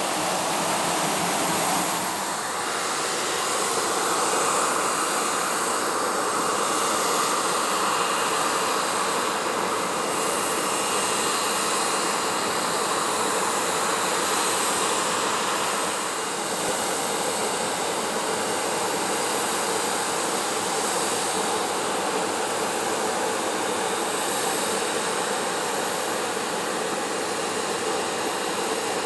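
Boeing 737-700's CFM56-7B turbofan engines running: a steady rush of jet noise with a faint whine over it.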